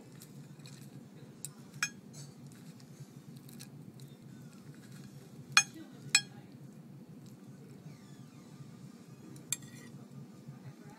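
Metal serving cutlery clinking against a plate while a whole fish is carved and filleted: a handful of sharp, ringing clinks, the loudest two in the middle about half a second apart, over a low steady hum.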